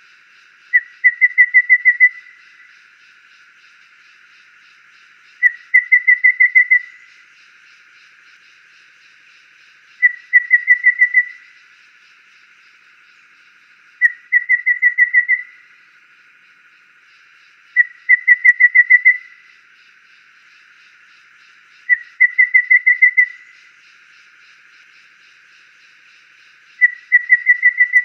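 Golden babbler (Cyanoderma chrysaeum) singing: a phrase repeated seven times about four seconds apart. Each phrase is a short lead note followed by a quick run of six to eight high whistled notes on one pitch.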